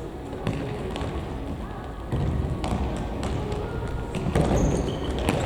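Futsal ball kicks and bounces knocking on a sports-hall floor, a few sharp hits about half a second, two seconds and four seconds in, over the running and shuffling of players.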